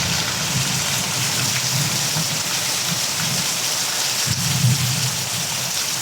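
Heavy rain falling steadily, a dense even hiss, with a low rumble wavering underneath.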